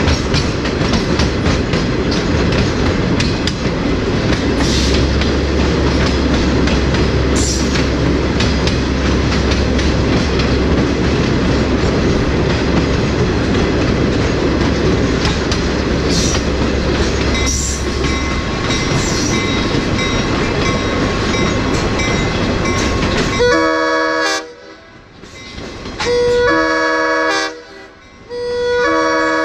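Train rolling along the track, heard from a caboose: a steady rumble of wheels on rail with light clicking. About 24 seconds in, the train horn sounds in several blasts, its chord of notes standing out as the rumble drops away.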